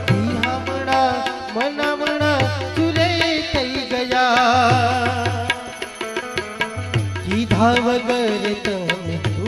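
Live Gujarati devotional bhajan: a man singing with harmonium accompaniment, tabla strokes with deep repeated bass-drum thuds, and an Indian banjo.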